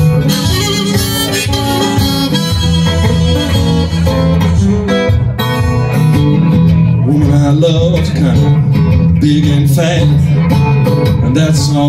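Acoustic blues played by one performer: harmonica in a neck rack over a steel-string acoustic guitar, the harmonica notes bending up and down in the second half.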